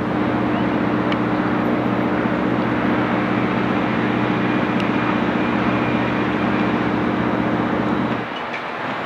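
A steady mechanical drone with a constant low hum under a wider rushing noise, cutting off abruptly about eight seconds in.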